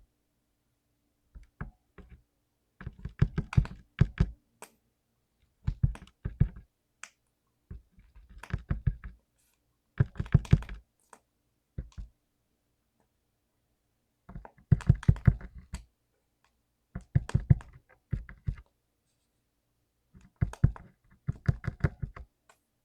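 Mechanical keyboard with lubed blue (clicky) switches being typed on in short bursts of rapid keystrokes. Each burst is a quick run of sharp clicks, with brief silent pauses between bursts.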